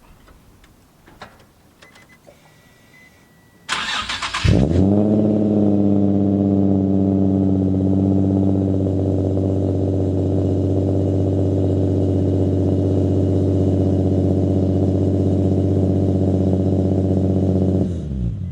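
Nissan 350Z's 3.5-litre VQ35HR V6 cranked by the starter and catching about four seconds in with a brief flare of revs, then settling into a steady idle, heard through cheap test pipes in place of the catalytic converters, which the owner finds too raspy. It is switched off near the end. A short beep sounds just before the cranking.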